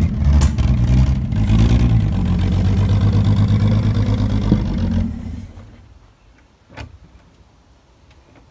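Ford XR Falcon ute's engine running and revving unevenly, labouring, then switched off about five seconds in and dying away. A single sharp knock follows a couple of seconds later.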